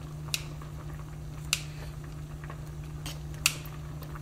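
Kitchen scissors snipping collard greens in a pot of soup: a few sharp snips about a second apart, the last the loudest, over a steady low hum.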